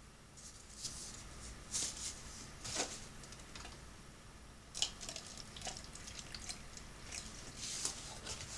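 Pepper plants being watered by hand: short, irregular splashes and rustles, each lasting well under half a second.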